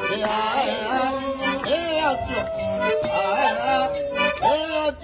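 Traditional Kikuyu accordion music played live, with a voice singing over it and a shaker rattling on the beat.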